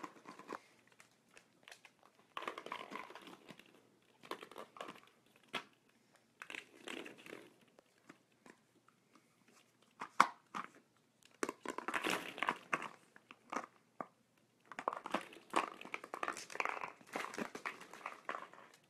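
Hollow plastic ball-pit balls clattering and crinkling against each other and the floor as a fox terrier noses and bites at them, in irregular bursts of clicks every few seconds with quiet gaps between.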